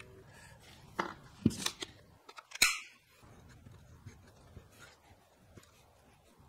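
Handling clatter of a cordless brad nailer and particle-board workpieces: a few sharp clicks and knocks, then one louder, longer sharp snap about two and a half seconds in, followed by faint rustling.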